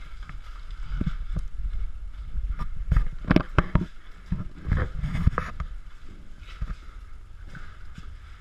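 Body-worn camera being jostled as its wearer moves, with a low rumble and a run of sharp knocks and clacks of gear and footsteps, thickest about three to four seconds in and again around five seconds.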